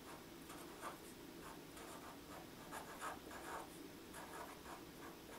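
Marker pen writing letters on paper: a run of short, faint strokes of the tip scratching across the sheet.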